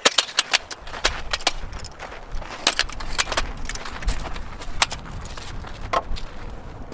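Collapsible ladder being set up and climbed: a quick run of sharp clicks and knocks, then scattered single knocks over a low rumble.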